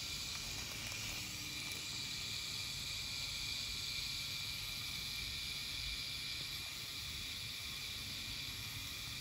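Permanent-makeup machine pen running steadily while it implants pigment into the eyebrow: an even hiss with a thin high whine.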